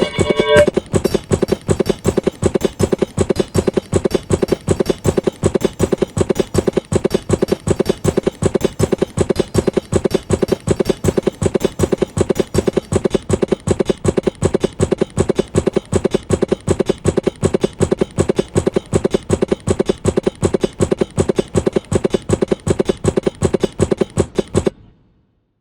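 Remix music built from a short pitched sample, likely a tool sound, chopped into a rapid even beat of about four hits a second with added percussion. It stops abruptly near the end.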